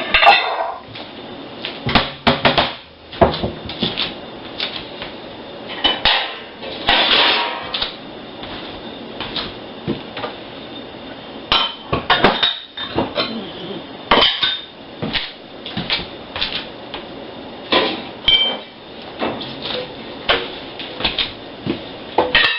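Dishes and cutlery being handled, with irregular clattering knocks and short ringing clinks of crockery striking crockery.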